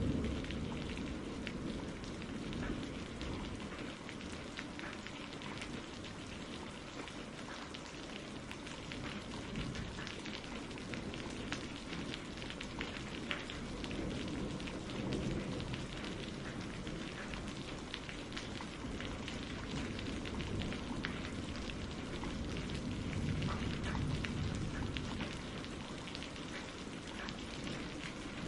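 Steady rain pattering down, with many fine drop ticks, and a low rumble of distant thunder that swells and fades a few times.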